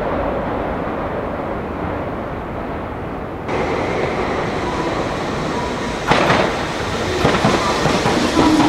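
A Meitetsu electric train running at a station: a steady rumble of wheels on rail, with a sharp burst about six seconds in and uneven clatter over rail joints toward the end.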